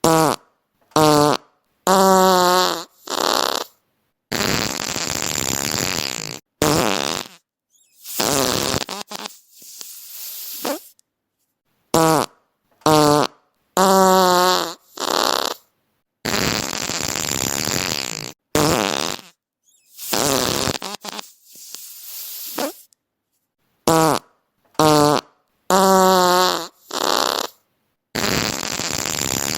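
A run of fart sounds one after another with short silent gaps: some short and pitched, others long and hissy, some trailing off. The same sequence repeats about every twelve seconds.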